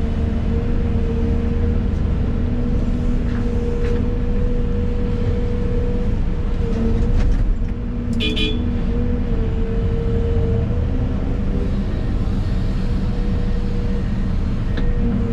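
Excavator diesel engine and hydraulics running steadily, heard from inside the cab as a low rumble with a steady hum. About eight seconds in, a brief high-pitched sound rings out over it.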